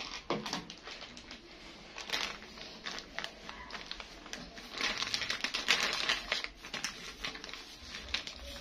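Clear plastic bag crinkling and rustling in the hand while hair dye is brushed onto dreadlocks: a run of quick crackly clicks and scratchy rustles, busiest a little past the middle.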